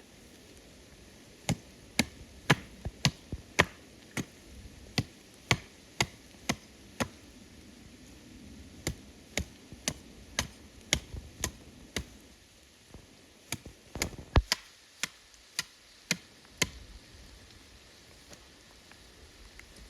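Sharp chopping strikes on wood, roughly two a second, with a couple of brief pauses; they stop about three-quarters of the way through. A steady hiss of rain lies underneath.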